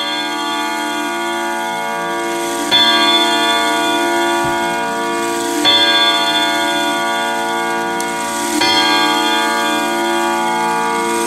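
Grandfather clock striking the hour: the hammer hits four evenly spaced strokes about three seconds apart, each a long, many-toned ring that carries on into the next. The strike mechanism has just been oiled and is working properly.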